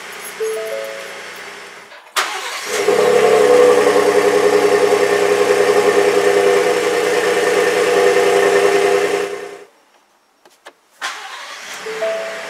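Ford F-150's 3.5 L EcoBoost twin-turbo V6 starting about two seconds in and then running steadily, heard at the tailpipe. It cuts off abruptly after about seven seconds. Background music plays at the start and resumes near the end.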